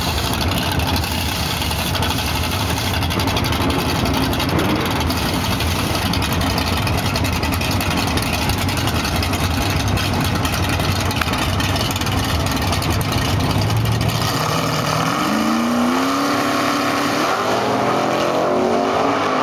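A drag-racing car's engine runs loud and rough at the start line. About fourteen seconds in it launches, and its pitch climbs in several steps through the gear changes as it pulls away down the strip.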